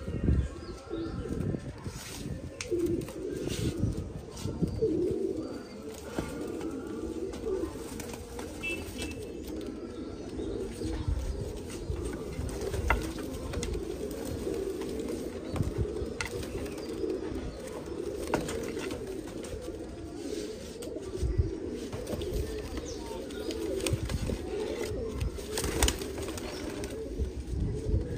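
A flock of domestic pigeons cooing continuously, many birds overlapping, with occasional wing flaps and sharp knocks.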